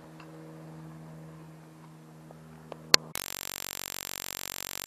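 A faint steady hum, then a sharp click about three seconds in, cutting to a loud hiss of static that drops out briefly about three times a second.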